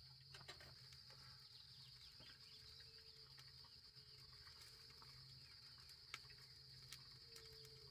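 Faint, steady high-pitched insect chorus, with a soft low call repeating every second or two and a few faint clicks.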